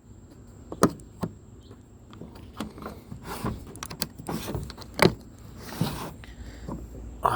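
A new Husky mechanics tool set's case being opened by hand: a few sharp clicks and knocks, with short scraping and rustling sounds in between.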